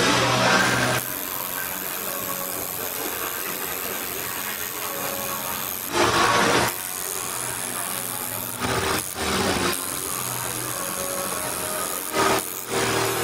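Tattoo machine buzzing in short runs of about a second, four times, over a steady hiss of hall noise.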